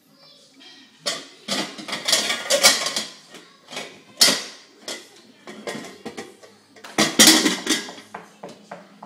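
Metal pans clanking and clattering against each other as they are pulled out of a wooden drawer, in a run of irregular knocks, with the loudest clatter about seven seconds in as a metal pan lands on the wooden floor.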